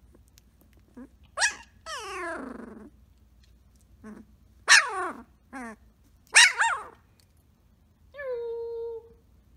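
Samoyed puppy roo-ing: a string of short yips and downward-sliding howl-like calls, then one steady held howl near the end.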